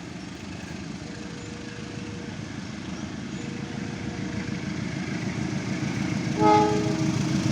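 A train approaching, its rumble growing steadily louder, with a short, loud blast of the train horn about six and a half seconds in. A faint tone sounds briefly about every two seconds underneath.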